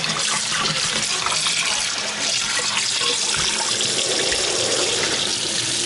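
Kitchen tap running steadily into a stainless steel sink, with water sloshing as raw chicken pieces are rinsed by hand in a tub of water.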